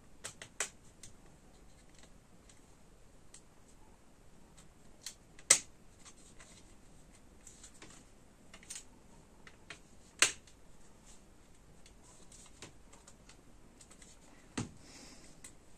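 Plastic clicks and snaps of an Aiwa PX477 cassette Walkman's casing and mechanism being handled and pressed back together. Two sharp snaps stand out, about five and ten seconds in, with a duller knock near the end.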